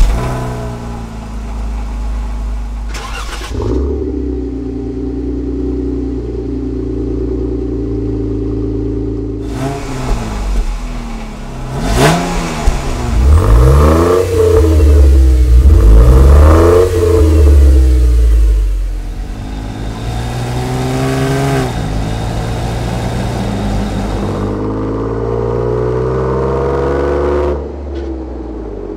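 Jeep Wrangler JK V6 exhaust: the engine idles on the stock exhaust, then is revved several times in sharp rising-and-falling blips on a Rough Country dual-outlet performance exhaust, which is the loudest part. Near the end it accelerates in a steady pull as the Jeep drives away.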